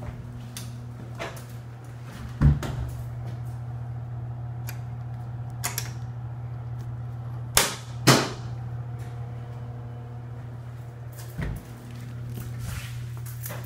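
Steady low electrical hum of switchgear or machinery. A heavy door thumps shut about two and a half seconds in, the handle of a fused disconnect switch is thrown with two loud metallic clacks about eight seconds in, and a low thump follows near the end.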